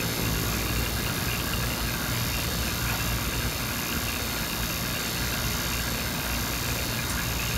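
Electric HVAC vacuum pump running loud and steady with a constant hum, pulling a vacuum on a refrigerant recovery cylinder through a micron gauge.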